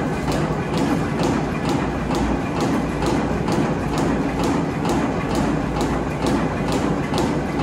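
Tea-processing machinery running steadily: a constant hum with a regular clacking knock about two to three times a second.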